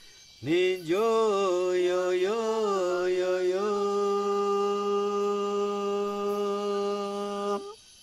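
A lone voice chanting without accompaniment: a few wavering, sliding notes, then one long held note that stops just before the end.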